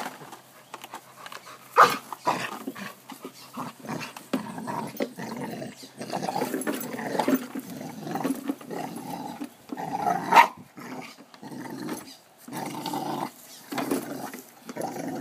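Pit bull growling in irregular bursts as it bites and worries at a push lawn mower's wheel, with a couple of sharp knocks, about 2 s and 10 s in.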